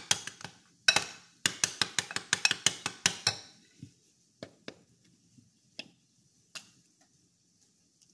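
Metal spoon clinking and scraping against a glass mixing bowl while stirring a thick sauce, several quick clinks a second for about three seconds. After that, only a few scattered taps.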